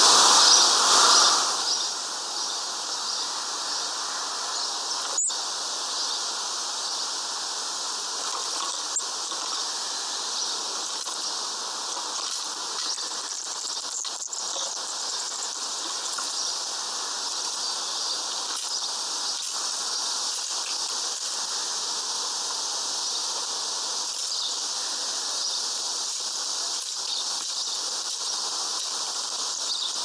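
Steady high-pitched outdoor background hiss, louder for the first two seconds. Scattered faint clicks run through it, with one sharper click about five seconds in.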